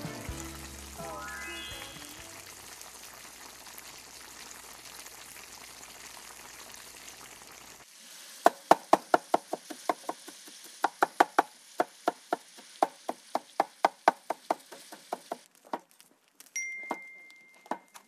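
Salmon and soy sauce sizzling quietly in a pan for the first few seconds. Then a kitchen knife chops mushrooms on a wooden cutting board: a quick run of sharp knocks, about four a second, in uneven bursts.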